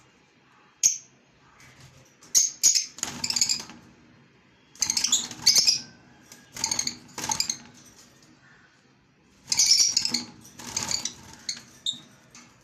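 A parrot giving harsh, repeated squawks in short bursts with pauses between, the calls coming in clusters of two or three.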